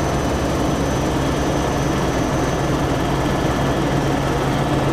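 Helicopter in flight: the steady, loud drone of rotor and engine, with a thin high whine held above it.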